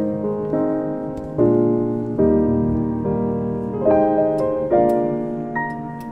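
Background piano music: notes and chords are struck a little more than once a second, and each one rings and fades before the next.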